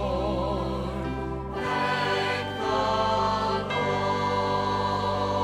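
Show-tune accompaniment playing sustained chords that change about every two seconds, with a held sung note wavering in vibrato at the very start.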